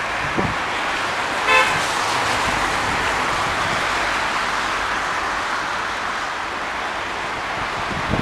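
Steady street traffic noise, with one short vehicle horn toot about a second and a half in.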